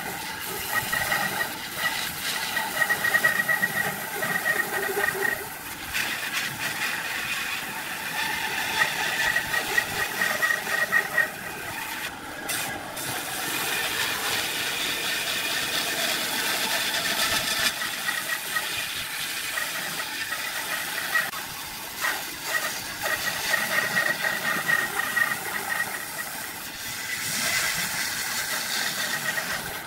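Bandsaw cutting through a thick block of wood: a steady hiss of the blade with a whine that comes and goes, swelling and easing as the wood is fed.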